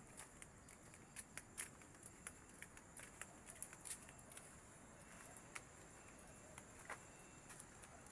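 Faint steady high-pitched insect chorus, crickets or similar, with scattered light clicks and rustles.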